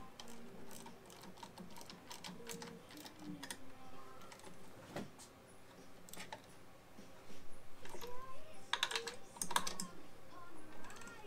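Irregular small clicks and taps of a hand and tool working a nut on a scooter fitting, growing denser and louder about eight seconds in.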